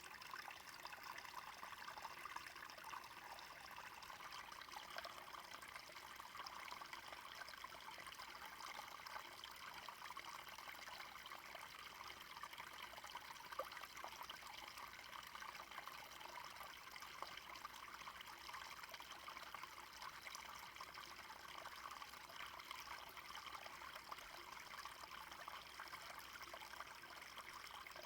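A small stream running over stones, a steady trickling and babbling of water.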